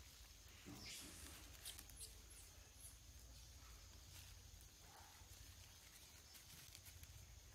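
Near silence: faint outdoor ambience with a steady high hiss, a light rustle about a second in and a few faint short high chirps.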